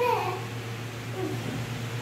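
A child's voice trails off at the start, then room tone with a steady low hum and a faint voice about halfway through.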